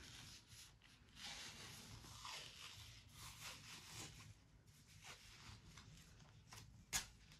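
White athletic tape being pulled off its roll and laid around the ankle, a faint rasping, peeling rustle in short stretches. A single sharp click near the end.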